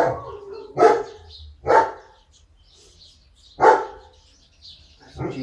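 A dog barking three times: single sharp barks about a second in, near two seconds, and near four seconds.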